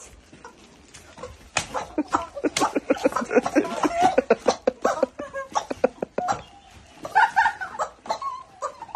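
Women laughing loudly in quick bursts, over sharp slaps and clacks of a broom swatting at the ground.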